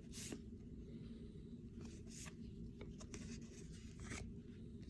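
Baseball trading cards being shuffled through by hand: several short, faint papery swishes as card slides over card, over a steady low hum.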